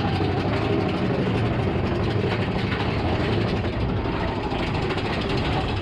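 Mine-train roller coaster cars rumbling and rattling steadily along the track.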